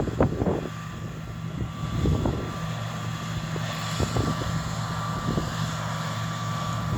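John Deere T670i combine harvester running steadily while cutting: a constant engine drone with a thin high whine above it. Wind buffets the microphone in irregular gusts.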